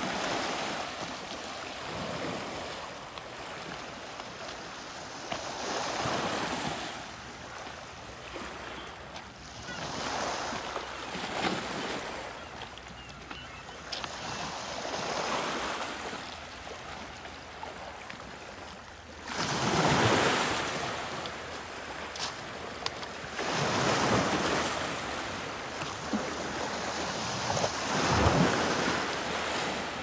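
Small Great Lakes waves lapping and washing onto a rocky shore. A swell of surf comes every four or five seconds, and the loudest comes about two-thirds of the way through.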